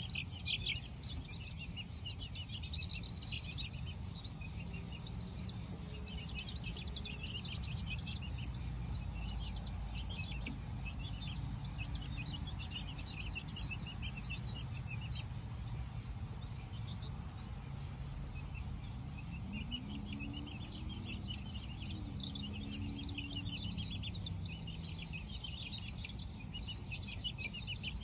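Crickets trilling steadily in the night, mixed with many short peeps from a group of young chicks, over a low rumble.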